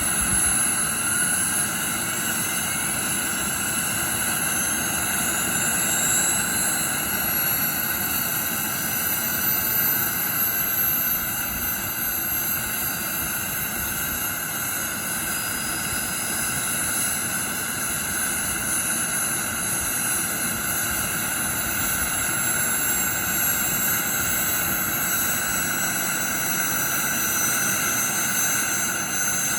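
Small gas-turbine engine of a radio-controlled model helicopter running steadily: a loud jet whine, with thin high tones that drift slowly in pitch, over a constant rush.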